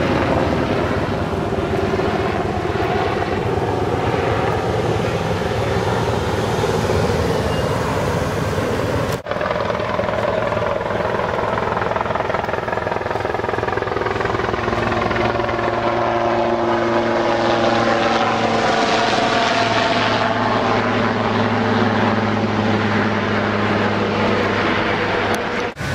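Air ambulance helicopter flying over, a loud continuous rotor-and-engine drone whose pitch slowly drifts as it moves. From about nine seconds in, a steady low hum runs beneath it.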